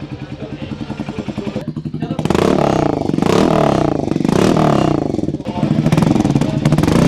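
Harley-Davidson X440's single-cylinder engine idling through a handmade 2-inch stainless-steel custom exhaust. From about two seconds in it is revved several times, each blip rising and falling in pitch.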